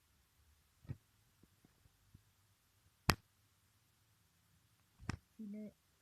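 A few sharp clicks in a quiet room, the loudest about three seconds in, and a short pitched sound near the end.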